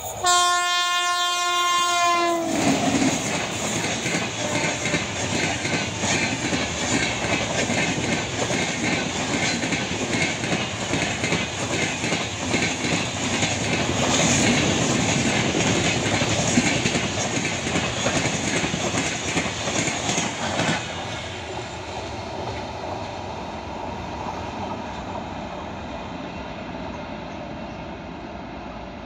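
A WAP-7 electric locomotive sounds one long horn blast of about two seconds as it approaches, then its express passenger train rushes past at speed with loud wheel clatter and clickety-clack over the rail joints. About 21 s in the sound cuts suddenly to a quieter, steady train rumble.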